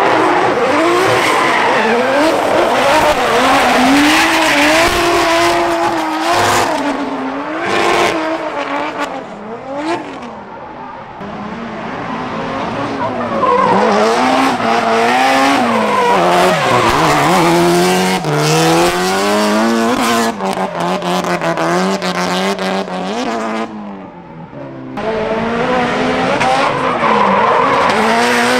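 Drift car engines revving hard, pitch swinging up and down with the throttle, over squealing tyres as the cars slide. The engine note drops away briefly around ten seconds in and again shortly before the end.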